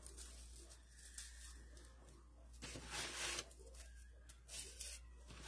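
Faint rustling and crackling of a bundle of dry, straw-like craft strands being handled and worked into a bow, with a louder rustle about three seconds in.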